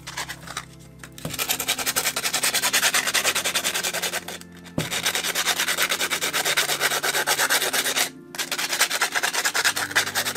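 Hand sanding of a cast concrete soap dispenser with a sanding sponge and sandpaper: quick back-and-forth scraping strokes on the rough concrete, smoothing its edges. The strokes stop briefly twice.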